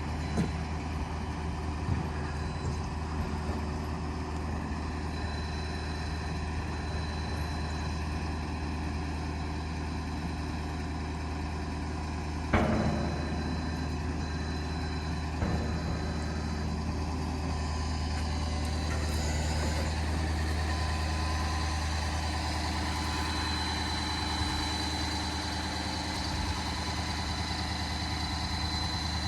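An engine idling steadily, with a sharp clank about halfway through and a smaller knock a few seconds later.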